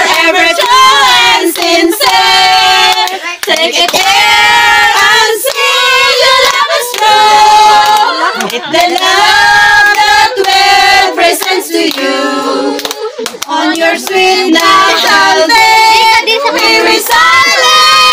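A group of women and children singing together, with hands clapping along in time.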